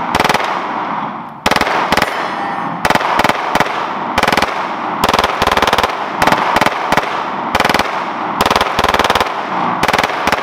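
Full-auto Glock 19 9mm pistol, converted with an auto sear and mounted in a KPOS G2 carbine kit, firing a string of short bursts of rapid fire with brief gaps between them, each burst trailing off in an echo.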